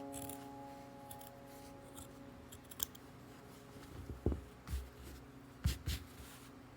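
A few soft clicks and knocks from hand sewing work, coming in two close pairs about four and six seconds in. A held piano note from the background music fades out during the first seconds.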